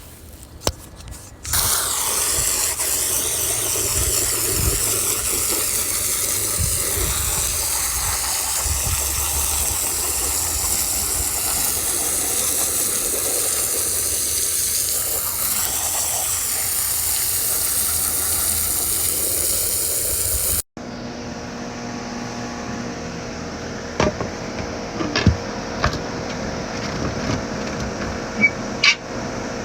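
Water spraying hard and steadily from a hose, washing out a pool filter; it starts about a second and a half in. About two-thirds of the way through it cuts off abruptly, and a steady mechanical hum with a few sharp clicks follows.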